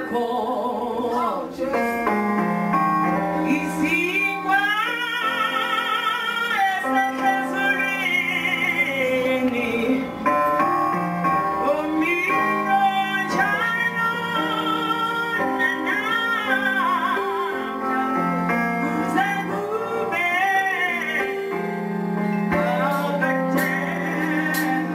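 Gospel group singing live: a woman's lead voice with vibrato over backing vocals and a band accompaniment with sustained bass notes.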